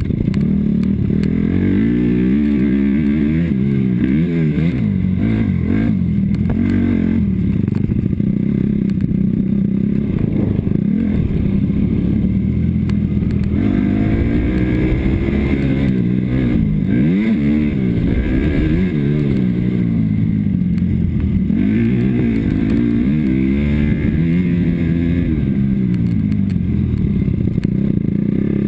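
Motocross dirt bike engine revving hard, its pitch rising and falling over and over as the throttle opens and closes, heard up close from a camera on the bike.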